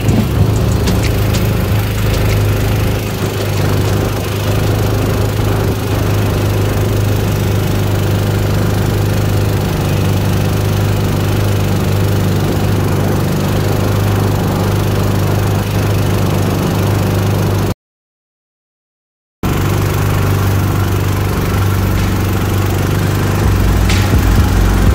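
Small single-cylinder gasoline engine of a jon boat's mud motor running at a steady speed with an even drone. The sound cuts out completely for about a second and a half a little past the middle, then the engine carries on unchanged.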